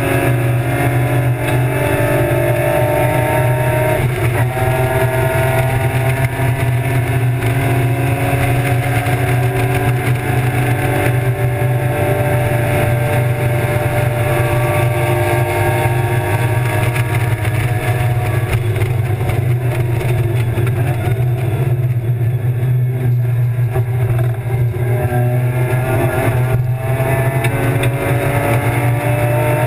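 BMW E36 325's M50 straight-six race engine heard from inside the cabin, running hard at high revs under load with its note climbing slowly. There are brief breaks in the note about four seconds in and again near the end.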